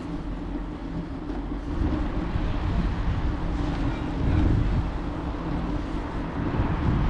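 Wind buffeting the microphone of a moving GoPro action camera over a steady low rumble of road noise; it grows louder about two seconds in, with stronger gusts near the middle and end.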